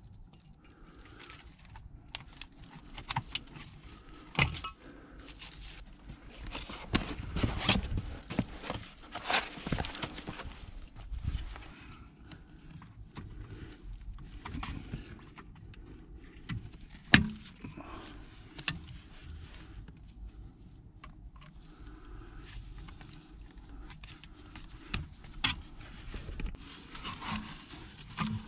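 Irregular jangling and rattling of small metal objects, with scrapes and a few sharp knocks; the loudest knock comes a little past halfway.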